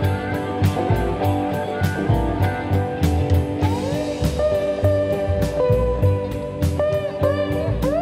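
Background music: electric guitar over a steady beat, with sliding, bending lead notes from about halfway through.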